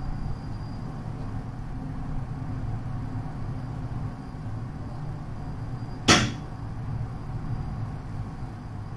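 Low steady hum of a Skyrail Midorizaka suspended car and its station machinery, with one sharp clack about six seconds in.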